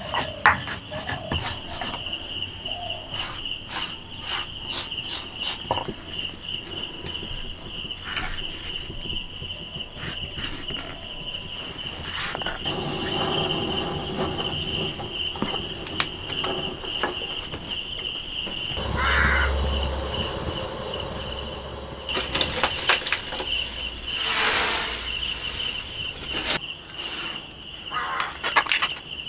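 Cricket chirping with a steady high trill throughout. Over it come scattered clicks and scraping from a stone slab and hand stone crushing seeds.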